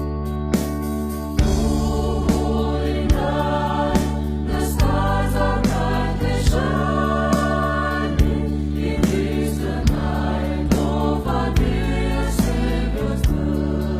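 Gospel-style choir singing over a band playing held bass notes and a steady drum beat, about one hit a second.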